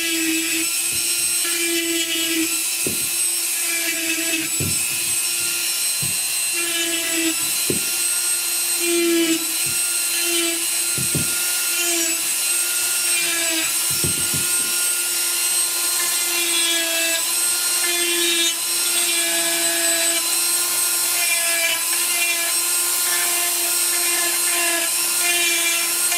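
Dremel rotary tool running at a steady speed with a continuous whine, its bit cutting small notches into a resin model part around a pin hole.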